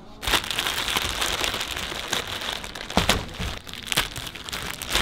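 Clear plastic shipping cover crinkling and rustling as it is pulled off a motorcycle in its crate. The crinkling starts about a third of a second in and goes on with many sharp crackles.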